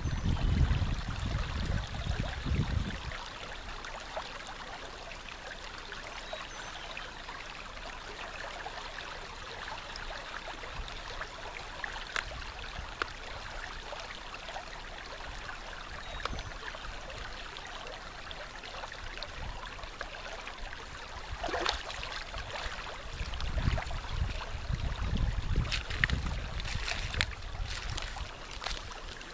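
Steady rush of flowing water, with low wind rumble on the microphone at the start and again near the end, and a few faint clicks.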